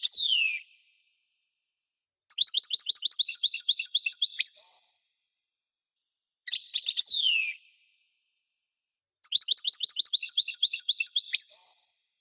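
European goldfinch singing in separate phrases. Short bursts of quick descending notes alternate with longer, fast trills of repeated notes that each end on a drawn-out note, with pauses of about a second and a half between phrases.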